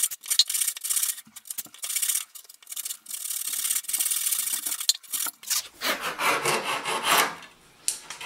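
Hand saw cutting through bamboo flooring in quick back-and-forth rasping strokes, roughly sawing off the waste corner of a dovetail tail board. The last couple of seconds of sawing sound fuller and heavier, then the strokes stop about seven seconds in.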